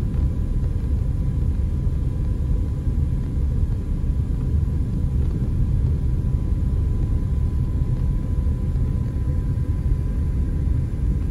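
Steady low rumble of road and engine noise inside a moving car's cabin, with a faint steady tone above it.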